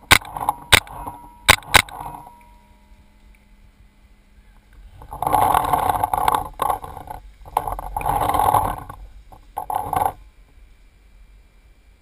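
Four sharp paintball pops in the first two seconds. From about five seconds in come several bursts of rustling and scraping as the marker and player move low behind a timber bunker.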